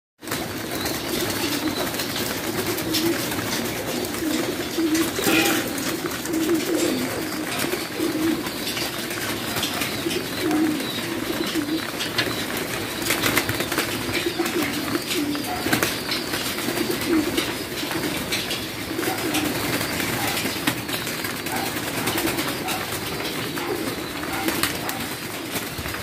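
A loft full of domestic pigeons cooing continuously, many birds overlapping, with a few brief sharp noises among them.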